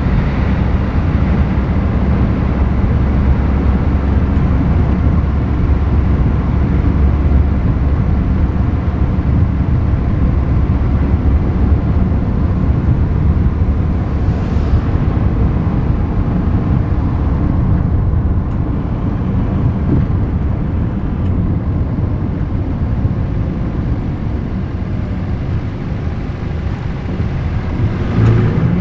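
Road noise of a car driving along an empty road, picked up outside the car: a steady low rumble.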